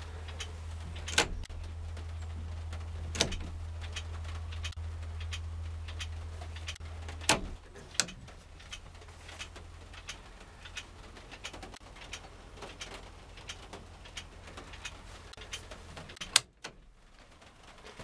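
Turn-signal flasher clicking steadily as the newly wired turn signal switch is tested, showing the signals now work, with a few louder clicks from the switch lever being moved. A steady low hum stops about seven seconds in.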